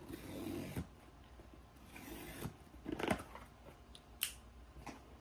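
A cardboard shipping box being handled and opened by hand: rustling and scraping of cardboard and packing, with a few sharp clicks and knocks. The loudest knock comes about three seconds in.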